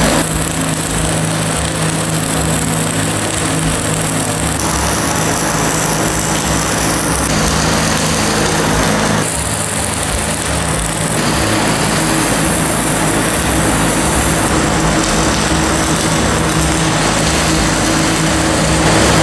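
Wire-feed (MIG) welding arc on sheet steel, giving a continuous sizzle with a low steady hum under it. The sound shifts abruptly a few times where the shots change.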